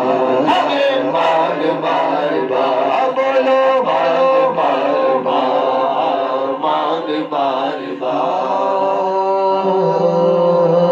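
Men singing an Urdu naat (devotional poem in praise of the Prophet and Medina) into handheld microphones, in a slow chanted melody without instruments. From about two thirds of the way in the voice settles into long held notes.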